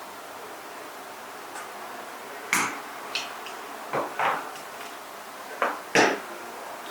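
Conduit connector fittings being handled and knocked against a hard surface: about six sharp clacks at irregular intervals, two of them in quick pairs.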